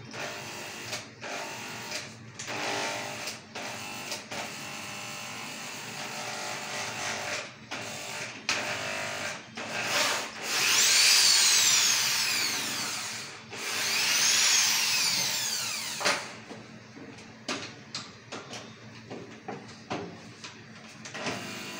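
Corded electric hand drill drilling into an iron window grille: about ten seconds of steady drilling, then twice the motor whines up to full speed and winds back down. Near the end come several short bursts of the drill.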